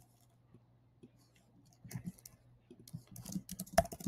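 Computer keyboard typing: a few scattered key clicks about two seconds in, then quick, dense typing from about three seconds in, with one sharper, louder click near the end. Before the typing there is only a faint steady hum of room tone.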